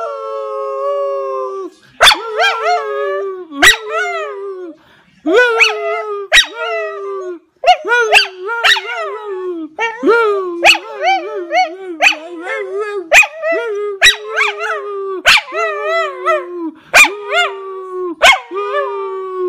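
A small shaggy dog and a man howling together, with long held, wavering howls. Short sharp barks cut in about once a second throughout.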